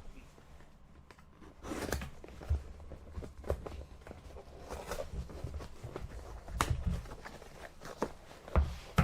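A box being opened and its packaging handled by hand: irregular rustling with scattered taps and knocks.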